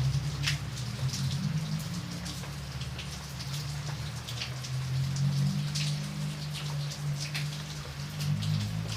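Raindrops falling and striking a surface: a continuous patter, with many separate close drops standing out, over a steady low hum.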